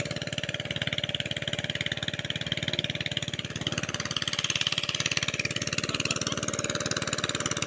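Two-wheel hand tractor engine running with a steady, rapid pulsing beat.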